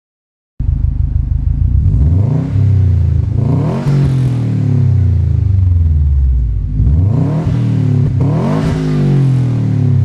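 A 2015 Subaru WRX STI's turbocharged 2.5-litre flat-four revved twice through a PERRIN non-resonated cat-back exhaust, the pitch climbing to a peak and falling back each time. The sound starts abruptly about half a second in.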